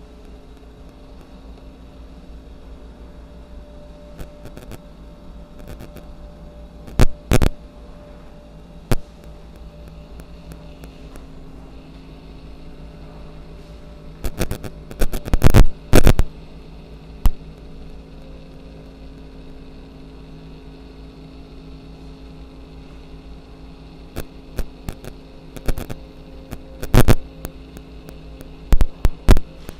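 Steady hum made of several held tones, broken by scattered sharp clicks and knocks. These come in a few clusters, the loudest around the middle and near the end.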